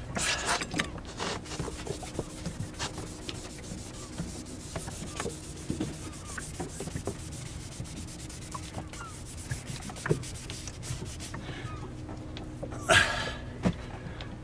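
A pan scrubber (scouring pad) rubbed by hand over a yacht's fibreglass gel-coat hull in short, irregular strokes, scrubbing off dinghy-paint scuff marks. A louder burst of noise near the end.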